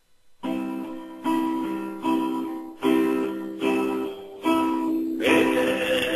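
Guitar chords strummed in a steady rhythm, one stroke about every 0.8 s, starting about half a second in. Near the end the playing gets fuller and louder, with a held note over the chords.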